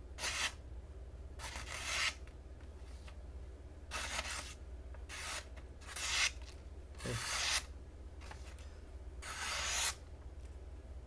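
Stainless-steel folding-knife blade slicing through sheets of bond paper: about seven separate cuts, each a dry scraping hiss of about half a second that grows louder as the stroke goes through.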